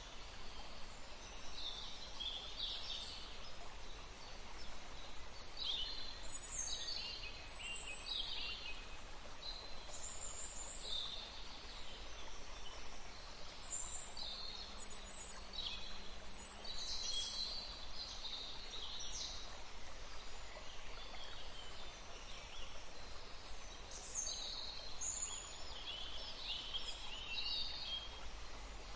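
Many birds chirping and calling in short overlapping phrases and trills, over a faint steady rush of water.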